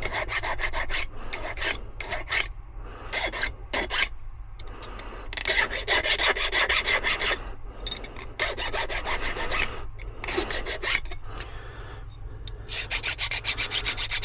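Silca Lancer key-cutting machine running with a steady hum while its cutter grinds into a bullet ward key blank in about six gritty passes of one to two seconds each, quieter between passes as the key is moved along the cutter.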